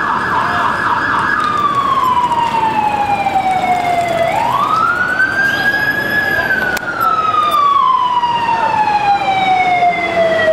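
Emergency vehicle siren. It opens with a fast, rapidly repeating yelp, then switches about one and a half seconds in to a slow wail. The wail falls, rises again about four seconds in, and falls slowly for the rest of the time, over steady street noise.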